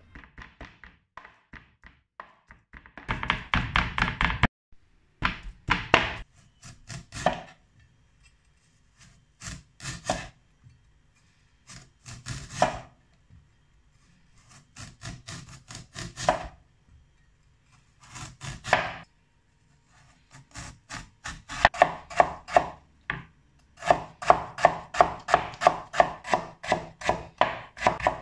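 Chinese cleaver slicing a white radish on a wooden cutting board. Bursts of quick knife strokes come with short pauses between them, turning near the end into a fast steady run of chops at about four a second.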